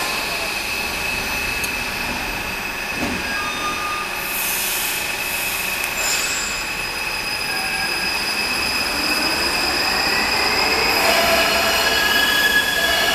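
Electric metro train in an underground station, with a steady electrical hum and high whine and a brief hiss about four seconds in. From about eight seconds on a rising motor whine grows louder as the train pulls away and accelerates.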